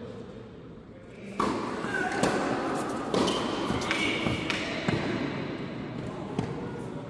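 Tennis rally on an indoor hard court: a series of sharp racket-on-ball hits and ball bounces, starting about a second and a half in. Voices carry in the large hall.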